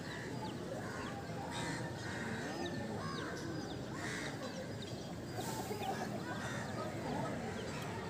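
Birds calling: a few longer calls among many quick chirps, over a steady background din.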